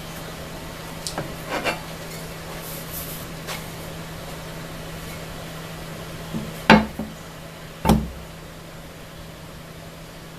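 Handling knocks: a few light clicks in the first two seconds, then two solid knocks with a low thud near the end, over a steady low hum.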